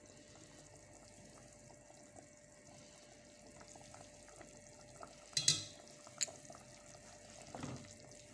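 Faint kitchen handling sounds while seasonings go into a pot: a quick cluster of sharp clicks about five and a half seconds in, one more click shortly after and a couple of soft knocks near the end, over a low steady hiss and a faint hum.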